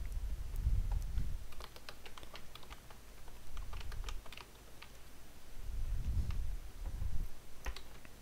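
Typing on a computer keyboard: scattered, irregular keystroke clicks as a line of code is entered. A low rumble sits under the clicks near the start and again about six seconds in.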